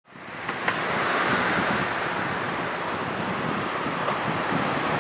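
Freight train hauled by an EF81 electric locomotive approaching: a steady rushing rumble of wheels on rail that fades in at the very start, with one sharp click about half a second in.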